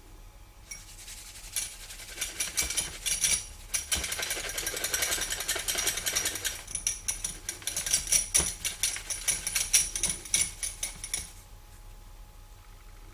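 Small wire whisk whisked fast in a glass of milk to froth it, its wires rattling and clicking quickly against the glass. It starts about a second in and stops after about ten seconds.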